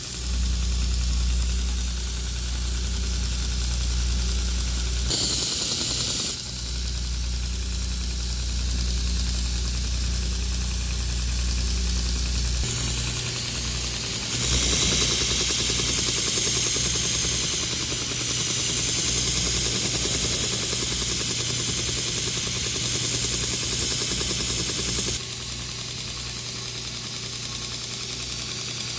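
Belt grinder running with a steady motor hum and a continuous hiss as a steel knife blade is ground against the abrasive belt. The grinding sound changes in character abruptly several times.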